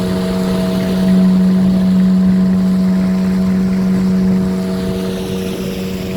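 Engine of a motorised sampan (small wooden boat) running at a steady speed: a constant, even drone with a noisy wash behind it.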